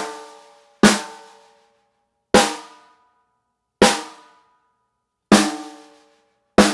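Single snare drum strokes about a second and a half apart, each ringing out with several overtones as it decays. A-B comparison of a 5.5x14 brass Craviotto and a 6.5x14 Joyful Noise TKO snare, both tuned to about 204 Hz.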